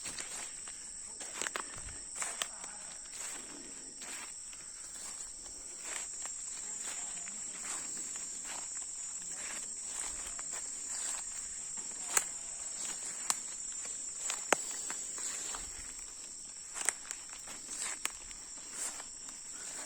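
Footsteps of someone walking outdoors, heard as irregular sharp crackles and snaps, a few of them louder. Under them runs a steady high insect buzz.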